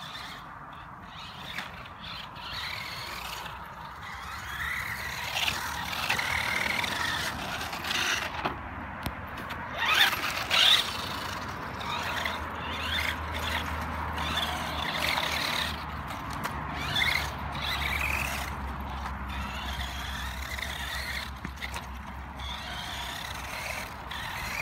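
Radio-controlled car's motor whining, the pitch rising and falling again and again as it speeds up and slows around the track, with two sharper, louder moments about ten seconds in.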